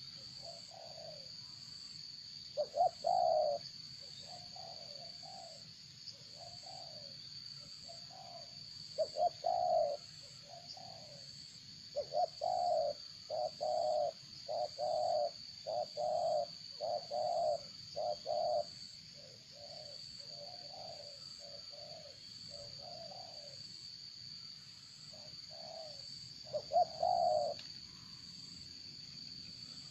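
Repeated low cooing calls of a bird in the pigeon and dove family, short notes in runs, densest in the middle. A steady high-pitched tone sounds beneath them throughout.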